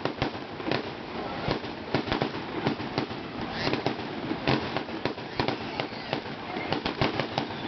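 Fireworks display: aerial shells bursting in a dense, irregular string of sharp bangs, several every second.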